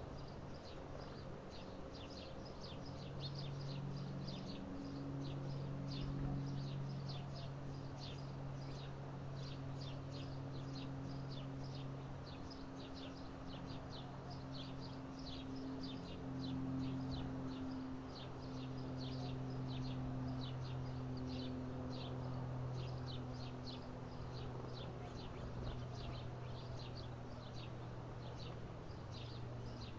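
Small birds chirping, short high chirps repeated several times a second without a break, over a low steady hum that shifts in pitch now and then.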